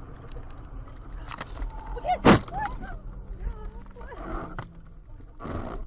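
A single loud, sharp bang inside a car cabin about two seconds in as the car loses control and heads off a snowy road, with a person's short cries around it. A brief rushing noise follows near the end.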